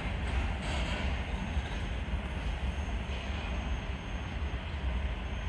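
Steady rumble of a freight train's container wagons rolling along the track as the tail end of the train goes by.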